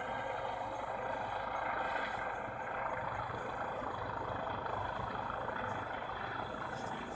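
A steady mechanical drone, like a running engine, holding level throughout.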